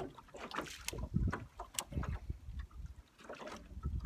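Wind buffeting the microphone in irregular low gusts, with small waves slapping against the hull of a small fishing boat.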